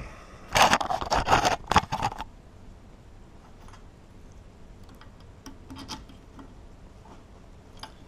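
Hands working a cracked heavy-duty padlock, metal on metal: a dense run of scraping and clicking starts about half a second in and lasts under two seconds. A few faint clicks follow around six seconds.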